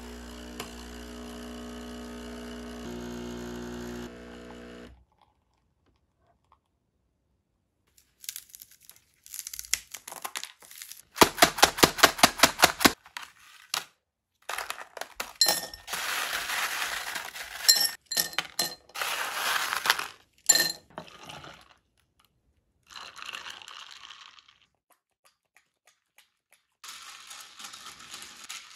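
A capsule coffee machine hums steadily for about five seconds. Later a plastic ice-cube tray is twisted so the cubes crack and pop free in rapid clicks and clatter, and near the end ice is stirred in a tall glass of iced coffee with a straw.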